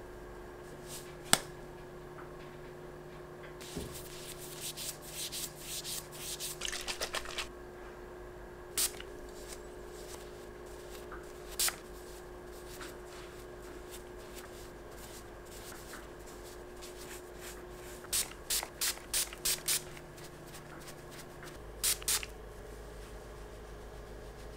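Quiet handling sounds: short soft brushing and rustling strokes of a dust brush and a plush cloth against a small plastic figure, coming in scattered groups, with one sharp click about a second in. A faint steady hum runs underneath.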